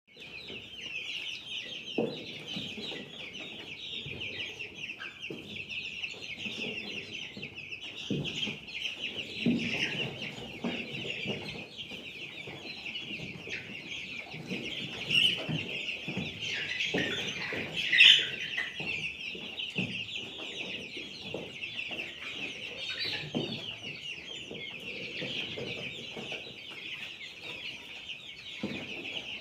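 A large flock of chickens calling without pause in a dense, high chorus, with scattered knocks and a louder sharp sound about 18 seconds in.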